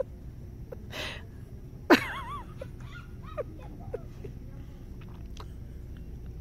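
Baby's small vocal sounds: short squeaks and grunts, with a breathy sound about a second in and a louder, wavering squeal about two seconds in, over a steady low background hum.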